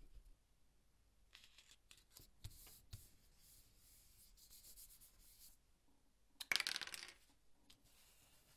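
Paper being laid down and pressed flat by hand on a cutting mat: faint rustling with two light taps, then one louder brief rub or scrape about six and a half seconds in.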